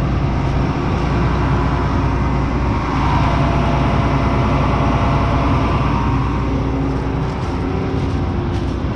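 Combine harvester running steadily, its engine a constant drone with mechanical noise over it.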